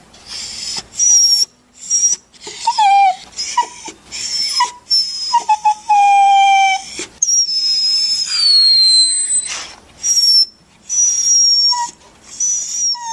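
Dog whining and crying: a run of short high whimpers broken by brief gaps, with longer drawn-out whines past the middle, several sliding down in pitch.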